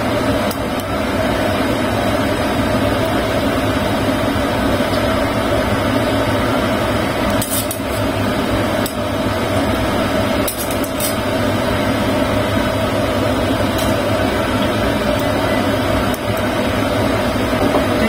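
Steady loud hum of a kitchen stove and fan running under a wok of simmering soy-sauce braising liquid. A few light metal clinks come between about seven and fourteen seconds in, as tongs set pigeons into the wok.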